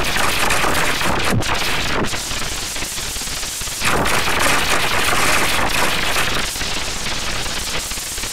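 Loud, harsh crackling noise of heavily distorted, clipped audio: a dense rattle with no clear tone, stepping louder about four seconds in.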